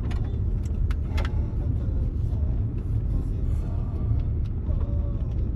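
Road noise inside a moving car: a steady low rumble from the tyres and engine, with a few sharp clicks or rattles about a second in.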